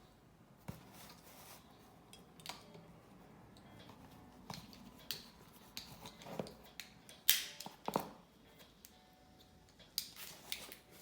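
A cardboard box and its packaging being opened and handled by hand: irregular rustles, scrapes and clicks, the loudest about seven seconds in.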